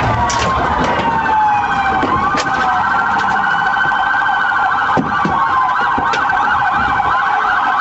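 Several police car sirens sounding together: a fast steady warble with slower wails gliding up and down over it, and a few short sharp knocks.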